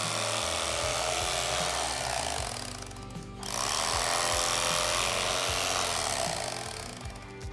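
Electric carving knife running as its blades saw through smoked turkey breast. It stops for a moment about three seconds in, then runs again and dies away near the end.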